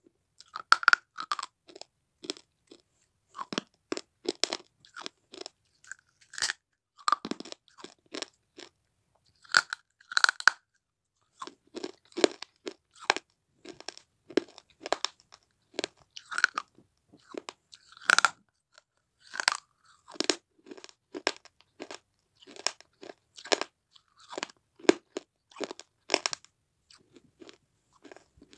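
A person chewing baked red clay crumbles: a continual run of sharp, dry crunches, one or two a second with short pauses.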